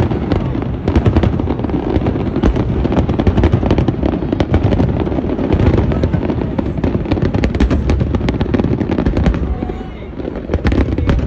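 Aerial firework shells bursting in a rapid, dense barrage, their booms and crackle overlapping. The barrage thins out about ten seconds in, with a few last bangs near the end.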